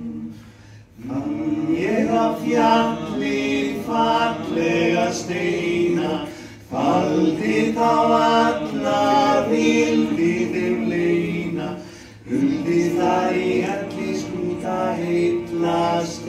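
A small group of male voices singing a cappella in close harmony, in three phrases with a short breath between each.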